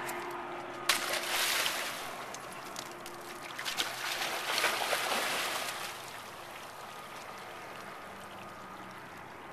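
Water splashing as a dog plunges in and paddles out after a floating stick: a sharp splash about a second in, more splashing until about six seconds in, then only gentle lapping of the water.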